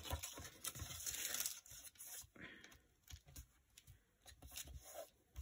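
Hands moving and smoothing sheets of scrapbook paper on a cutting mat: soft paper rustles and scrapes, busier in the first second and a half, then sparse.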